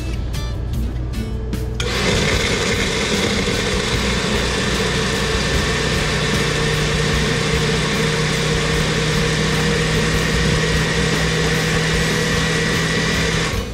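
Electric blender running steadily while blending piña coladas. It switches on about two seconds in and shuts off near the end.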